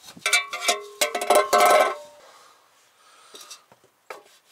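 Sheet-metal air cleaner lid clanking and ringing several times over the first two seconds as it is handled, then a few light taps as a new paper air filter is set into the housing.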